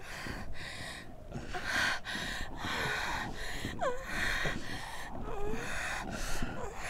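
A person breathing hard in a string of gasping breaths, with a few brief falling vocal sounds between them.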